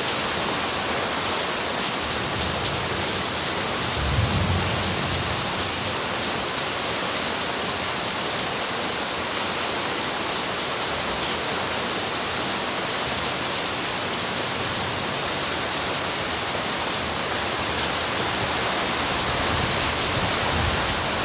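Steady rain falling, a dense even hiss with no single drops standing out. A brief low rumble rises and fades about four seconds in.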